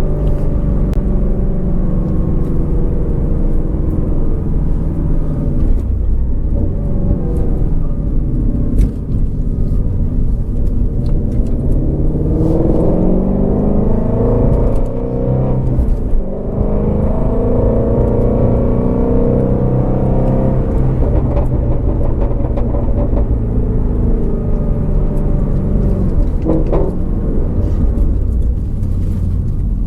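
2019 Shelby GT350R's 5.2-litre flat-plane-crank V8 running while driving, its pitch climbing under acceleration about a third of the way in, then easing back down and holding steady. A few short, sharp crackles are scattered through it.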